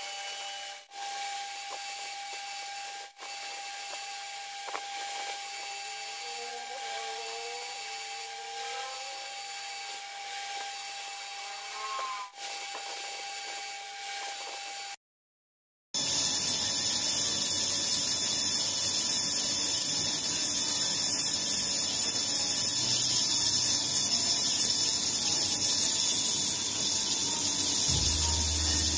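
A loud, even rushing hiss of a stream of coolant pouring onto a metal plate as it is cut. It starts suddenly about halfway through, after a quieter stretch with a steady workshop hum and a second of silence.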